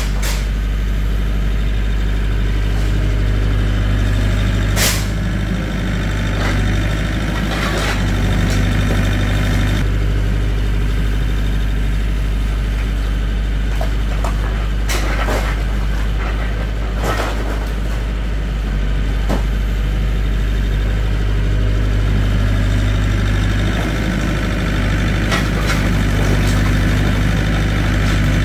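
Engine idling steadily, with a few sharp knocks over it.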